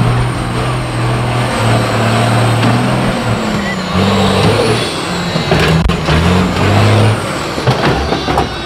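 Diesel engine of an off-road rock crawler revving in bursts under load, its pitch stepping up and down, with a faint high whine that rises and falls twice and a couple of sharp knocks in the second half.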